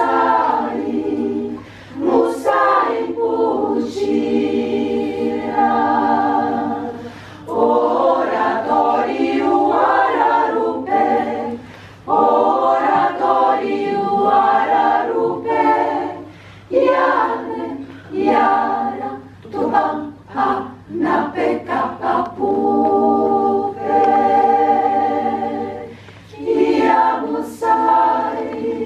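Women's choir singing in several voices: a song of Amazonian indigenous women, sung in phrases a few seconds long with short breaths between them, and a quicker run of short, clipped syllables around the middle.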